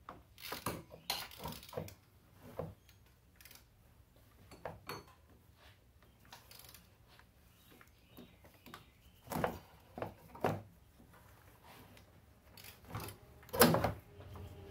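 Ratchet and hand clinking and knocking against the serpentine belt tensioner as it is levered back and the belt is worked off its pulley. The metallic clicks and knocks are irregular, with a cluster of louder ones in the last few seconds.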